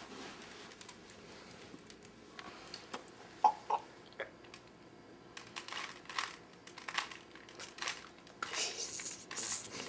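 Rubik's cube being handled and turned: scattered small plastic clicks and rustles, busier in the last couple of seconds.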